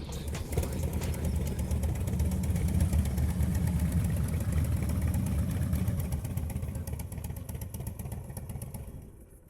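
Harley-Davidson V-twin motorcycle engine running with a steady low rumble, fading out over the last few seconds.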